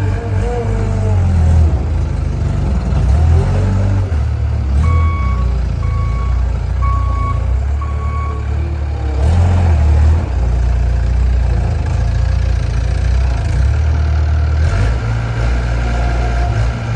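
Skid steer loader's engine running under varying load, rising and falling in speed as the machine works. From about five seconds in, its reversing alarm beeps four times, about once a second.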